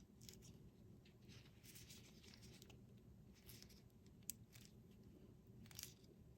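Near silence with faint handling sounds: soft scratching and a couple of small clicks as a CR2032 coin battery is worked into a garage door remote's battery holder.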